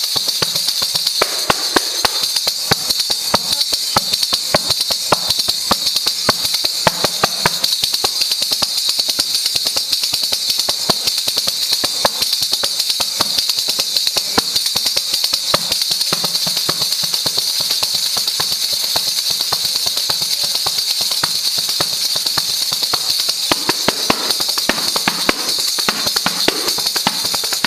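Asturian pandereta, a tambourine-type frame drum with metal jingles, played by hand in a fast, steady rhythm. The dense strokes keep the jingles ringing throughout.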